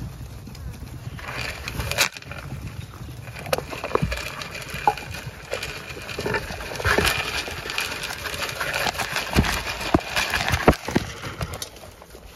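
A flock of Zwartbles sheep running up and crowding at a feed trough: hooves scuffling and clattering, jostling and eating at the trough, with scattered sharp knocks.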